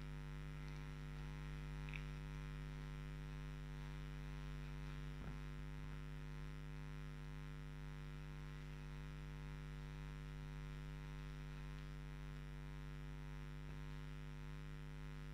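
Steady electrical mains hum with its stacked overtones. Two faint ticks come about two seconds and five seconds in.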